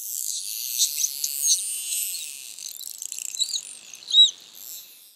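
Atlantic spotted dolphins whistling and clicking underwater: a dense crackle of clicks with short rising and falling whistles, and two loud arched whistles near the end, the louder one about four seconds in.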